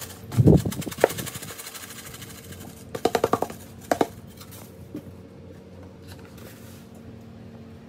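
Coarse salt pouring from a cardboard box into a stainless steel bowl, a fine hiss that tails off over the first two seconds. There is a low thump about half a second in, a sharp click, and a quick rattling run of knocks about three seconds in.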